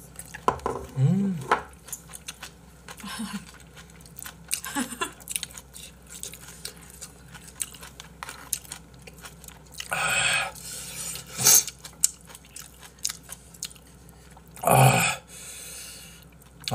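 People chewing mouthfuls of spicy braised monkfish (agujjim), with small clicks of chopsticks on the dish. There is a short low hum about a second in, and two louder hissing rushes of noise about ten and fifteen seconds in.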